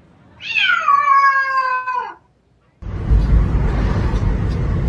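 A cat meowing once, a long meow that starts high and slides down in pitch. After a short break the audio cuts to a steady low rumble of road noise from a moving car.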